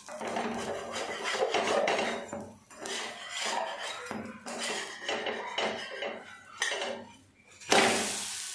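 Metal spatula scraping under a crisp adai on a hot dosa tawa in a run of short scrapes, loosening it to turn it over. Near the end it is flipped, and a sudden loud sizzle starts as the raw batter side lands on the hot pan.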